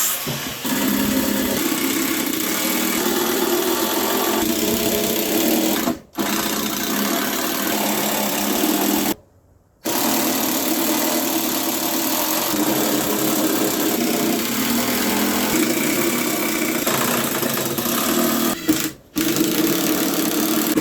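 Electric power saw running and cutting through pine boards, a steady mechanical buzz that drops out abruptly three times.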